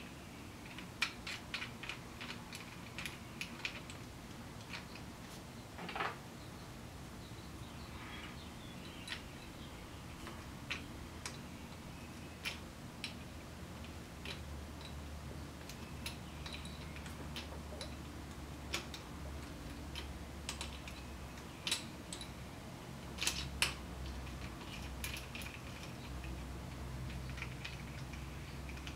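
Scattered, irregular small metal clicks and ticks from a small wrench and screws being worked by hand on a metal lathe's top slide.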